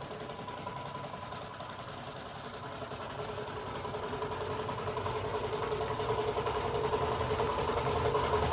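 Belt-driven single-piston air compressor with a 1.5 hp electric motor running, a rapid steady pulsing under a steady tone. It grows gradually louder.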